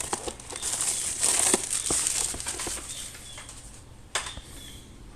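Plastic packaging crinkling and rustling as its seal is opened and handled, with many small clicks. It is loudest in the first half, then quieter, with one sharp click near the end.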